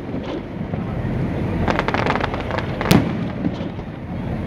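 Fireworks going off over a continuous low rumble: a quick run of crackling pops about two seconds in, then a single sharp bang.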